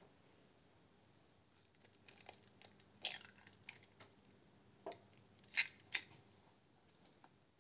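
Quiet food-preparation handling: soft scrapes and small taps start about two seconds in, as an egg is cracked into a stainless steel mixing bowl of filling and a spatula knocks against the bowl, with a few sharp clicks near the end.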